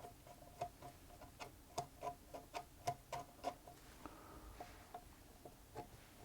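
Small screwdriver driving the screws of a feed-shaft crank cap into a Singer Featherweight 221K sewing machine: a run of faint, irregular metallic clicks, about two or three a second, thinning out after about four seconds.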